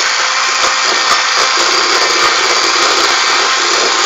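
Electric hand mixer running steadily, its beaters whisking egg whites into a stiff foam in a bowl.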